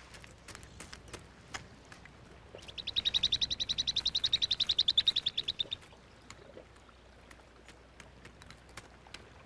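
Guanaco alarm call: a high-pitched rapid trill of about ten pulses a second, lasting about three seconds and starting a few seconds in.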